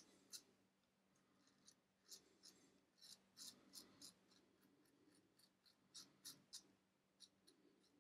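Double-edge safety razor with a Mühle R41 head and Feather blade, scraping lathered stubble on the upper lip. It makes a string of faint, quick, scratchy rasps in short strokes.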